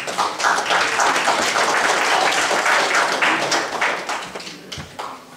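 Congregation applauding: a burst of many hands clapping that starts at once and fades out near the end.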